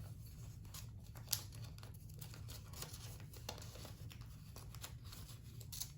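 Faint rustling and crinkling of paper cash and envelopes being handled, with a few small ticks and one sharper one early on.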